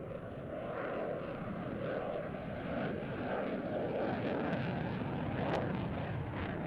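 Boeing F-15QA's twin General Electric F110-GE-129 turbofans in afterburner, a ragged jet rumble that builds a little over the first few seconds, with crackling and one sharper crack about five and a half seconds in.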